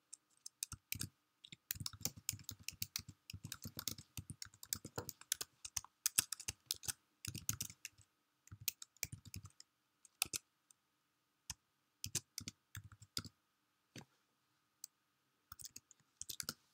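Typing on a computer keyboard: quick, irregular runs of key clicks broken by a few short pauses.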